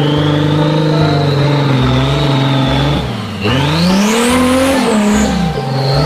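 Dirt bike engine running at a steady pitch, dropping briefly about three seconds in, then revving up again.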